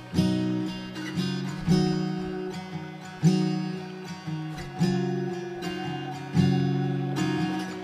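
Background music: an acoustic guitar strumming chords that ring out and fade, with a fresh strum about every second and a half.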